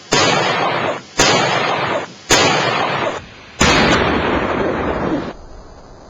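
Firework mortar shells exploding: four sharp bangs about a second apart, each followed by a second or so of loud blast noise that cuts off abruptly, the last running longest.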